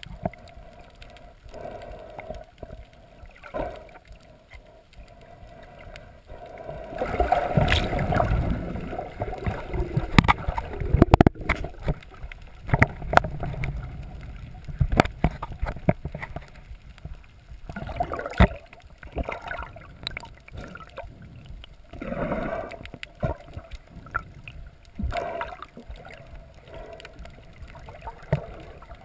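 Water gurgling and rushing around an underwater camera during a free dive, uneven and muffled, with louder stretches and many scattered sharp clicks and knocks.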